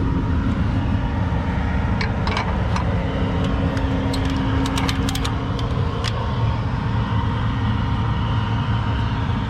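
A vehicle engine running steadily with a low hum, with a few sharp clicks between about two and six seconds in.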